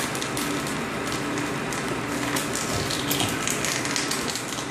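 Corn puff extruder running: a steady, crackling hiss as the hot corn-meal tube is pushed out through the heated die, with a faint hum that comes and goes.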